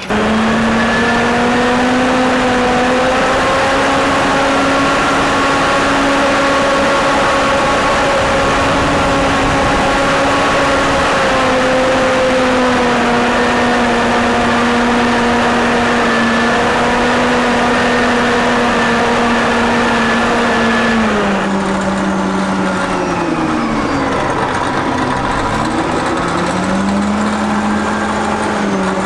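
Caterpillar 988A wheel loader's diesel engine running hard at steady high revs. About two-thirds of the way through the revs drop and dip twice, then climb back up near the end.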